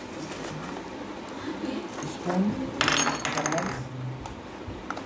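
Hollow plastic fishing bobbers tumbling out of a cardboard parcel onto a hard tabletop: a quick rattling clatter of many small hits, lasting about a second, about three seconds in.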